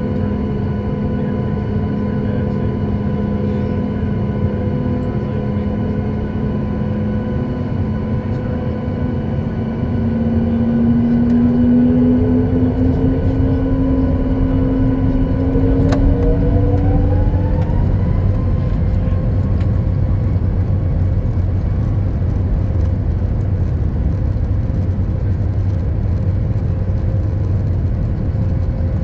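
Boeing 737 MAX 8's CFM LEAP-1B turbofan engines heard from inside the cabin while taxiing: a steady hum and whine over a low rumble. About halfway through, the engine pitch rises over several seconds and the sound grows louder as thrust is added, then holds steady.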